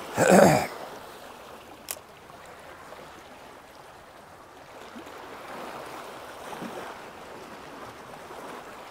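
Sea waves washing on the shore, a steady rush of water. A brief loud burst comes right at the start, and a single sharp click about two seconds in.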